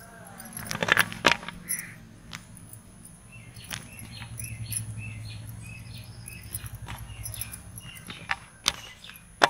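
Pieces of Milkybar white chocolate clicking and tapping against a baking tray as they are broken and laid down by hand. The taps are loudest in a quick cluster about a second in, with a few more single taps near the end. Birds chirp in the background from about three seconds in.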